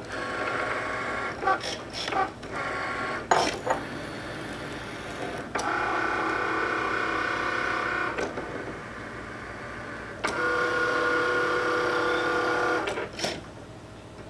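Cricut Maker cutting machine running a cut: its motors whir in short spells and then two longer steady runs as the mat feeds in and out and the blade carriage moves side to side, with sharp clicks in between.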